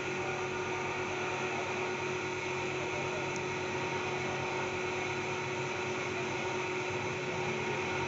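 Steady machine hum with several held tones under a light hiss, unchanging throughout.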